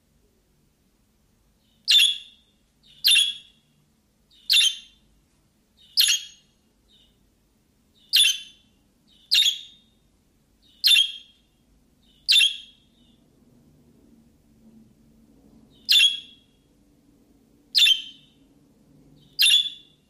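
Eleven short, sharp bird chirps, about one every one to two seconds, with a longer gap past the middle.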